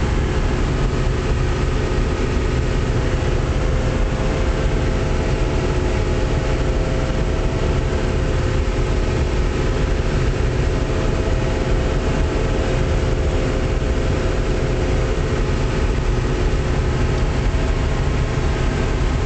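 John Deere 6600 combine running steadily at harvest, a low engine rumble with a constant whine from the machinery on top.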